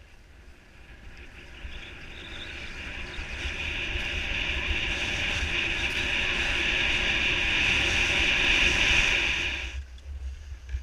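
Skis hissing over hard-packed groomed snow, growing louder as the skier picks up speed, with wind buffeting the camera microphone. The hiss cuts off suddenly near the end.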